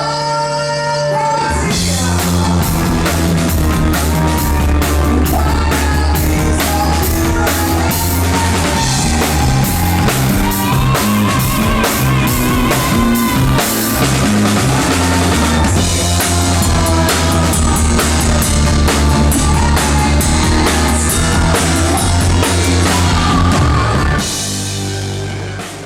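Rock band playing loud on a live stage, with a full drum kit keeping a steady beat under a bass line and a lead melody. A held chord opens it, the full band comes in about two seconds in, and it breaks off near the end.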